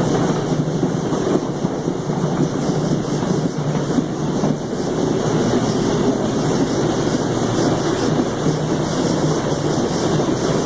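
Farm machinery running steadily: a constant engine hum under a wide, even noisy rush.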